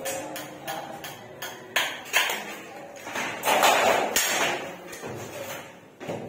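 Several irregular hammer strikes on metal channel being nailed to a concrete wall, sharp knocks with some metallic ringing, loudest a little past the middle.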